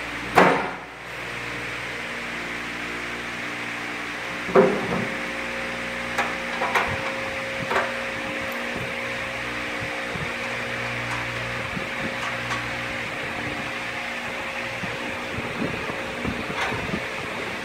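Sheet-metal feed tray and housing of a 9FC21 corn mill knocking and clicking as the tray is fitted by hand: a sharp knock just after the start, another about four and a half seconds in, then a few lighter clicks. Underneath, a steady fan-like hum.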